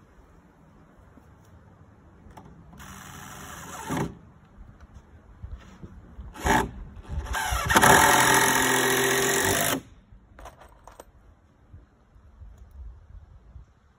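Power drill driving screws into wooden floor boards, in three runs: about a second long around the three-second mark, a brief one, and a longer, louder one of about two seconds in the middle.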